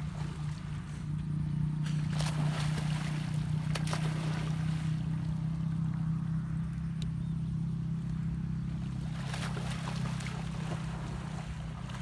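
Water splashing as people wade and swim through shallow pond water, in two longer stretches about two and nine seconds in. Under it runs a steady low hum.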